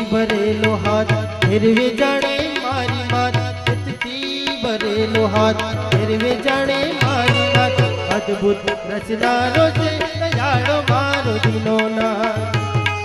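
Live devotional bhajan music with no words sung: a harmonium holding chords, a tabla keeping a steady beat, and an Indian banjo playing a gliding melodic line.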